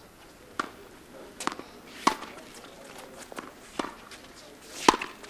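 Ball and paddle hits in a pickleball rally: a series of sharp pops about a second apart, the loudest near the end.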